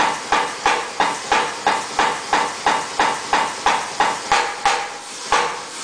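Massey 3cwt pneumatic power hammer running under power, its ram delivering rapid, even blows of about three a second, each a sharp strike with a short ring. The blows break off briefly near the end, then resume.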